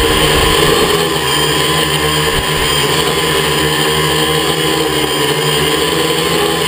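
Quadcopter's electric motors and propellers whining steadily in flight, the pitch wavering slightly.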